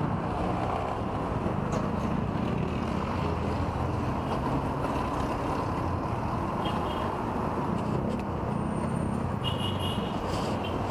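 A small motorcycle engine running as the bike rolls slowly through city traffic, with the steady hum of surrounding traffic. A few faint high chirps come near the end.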